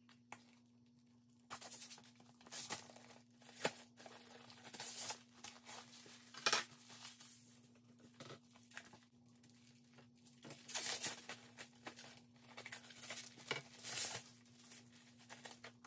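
Protective plastic film being peeled off clear die-cutting plates and crumpled by hand: plastic crinkling and crackling in short rustles, on and off.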